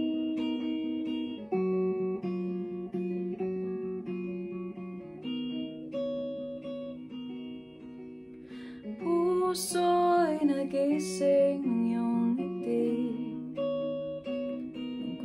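Clean electric guitar, a Telecaster-style solid body, picking slow chord notes that each ring for about a second. A short sung phrase joins in about halfway through and is the loudest part.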